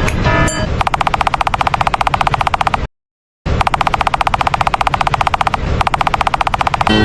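Japanese railroad crossing warning bell sped up into a rapid rattle of dings, about twenty a second, over a low rumble. It cuts out for about half a second a little before the middle, then resumes.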